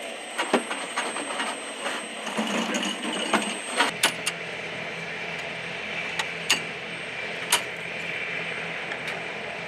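Scattered sharp metallic clicks and knocks from hands working on a helicopter's seven-tube rocket launcher pod, over a steady background hum.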